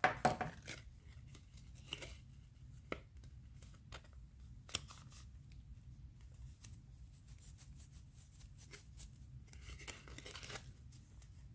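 A strip of black cardstock being handled, bent and pressed into place: a crackling rustle of paper right at the start, scattered small ticks and clicks, and another rustle about ten seconds in.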